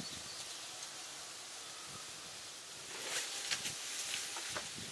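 Quiet outdoor ambience with a steady faint high hiss; about three seconds in, a few short, crisp crunches of footsteps on dry leaves and gravel.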